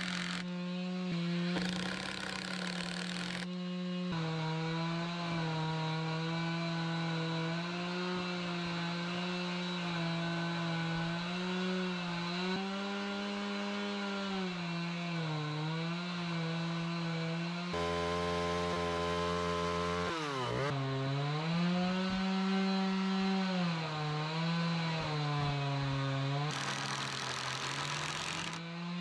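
Small chainsaw running at high speed while cutting a rough-sawn board. Its steady whine sags in pitch and recovers several times as the cut loads the chain, with one sharp bog a little past the middle.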